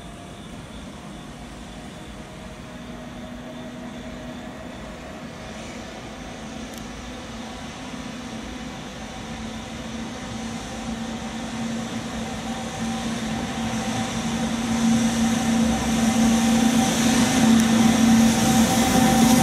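JR Freight EF210 electric locomotive hauling a container freight train on approach, growing steadily louder as it nears. A steady low hum runs under its running noise, and wheel-on-rail hiss rises over the last few seconds as it reaches the platform.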